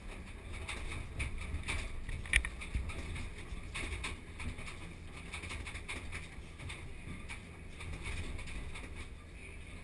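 Cab interior of a Komatsu PC2000 hydraulic mining excavator at work: the diesel engine and hydraulics give a steady low drone, and a few short knocks come in the first few seconds as the bucket digs into blasted rock.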